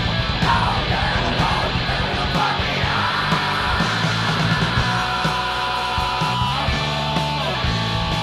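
A live hard rock band playing: bass guitar, drums and electric guitar, with shouted vocals over them and held notes ringing near the middle.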